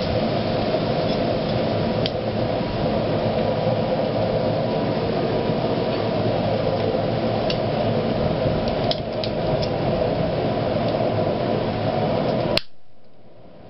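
A blacksmith's forge running with a steady rushing noise and a faint hum while an iron bar heats, with a few light metal clinks. The noise cuts off suddenly with a click near the end.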